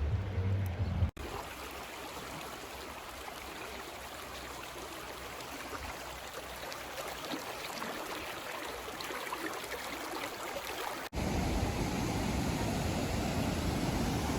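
Creek water rushing steadily. Near the end it changes abruptly to a louder, deeper rushing.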